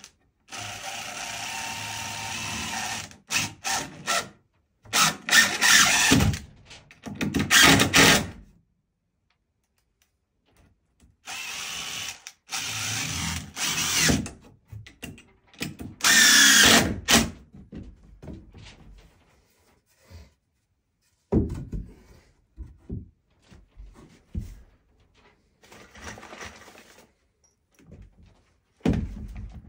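Cordless impact driver driving screws into wooden wall studs, in four runs of a few seconds each that get louder toward their ends. Short knocks follow in the last third.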